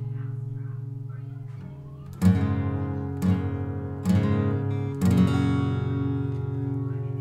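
Fender CD-140S all-mahogany dreadnought acoustic guitar: a chord rings and fades, then four chords are strummed about a second apart and left to ring.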